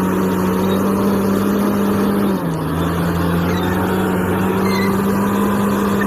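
Crawler bulldozer's diesel engine running as the machine pushes earth and rock with its blade: a steady drone whose pitch drops slightly about two and a half seconds in.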